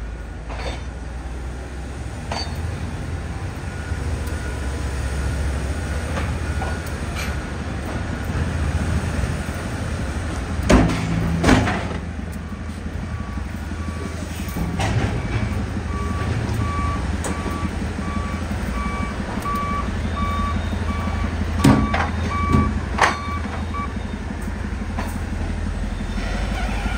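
Steady low drone of running baler machinery, with a vehicle's reversing alarm beeping about once a second through the second half. Several loud knocks come about halfway through and again near the end.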